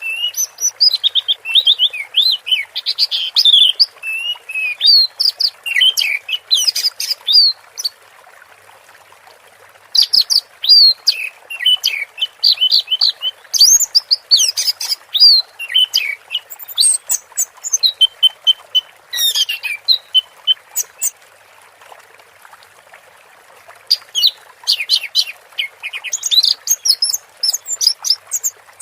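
Orange-headed thrush (anis merah) singing in long runs of rapid, varied high whistles and chirps, breaking off twice for a couple of seconds. Under it runs a steady faint hiss of flowing water.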